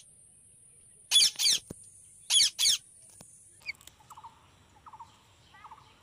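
Indian ringneck parrot giving shrill, wavering screeches in two quick pairs, the first about a second in and the second about two seconds in. After that only a few faint, short chirps are heard.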